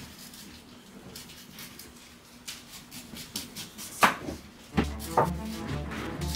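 Kitchen knife cutting pineapple rind on a wooden cutting board: faint slicing strokes, then a sharp knock of the blade on the board about four seconds in and another about a second later. Background music comes back in near the end.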